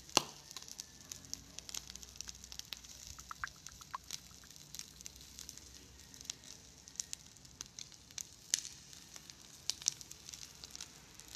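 Skewered chicken feet grilling over a charcoal fire, sizzling with irregular crackles and sharp pops, the loudest pop just after the start.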